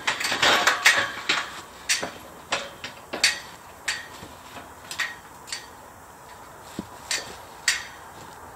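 Metal striking metal: a quick cluster of clanks, then single sharp ringing knocks about every half second, stopping near the end.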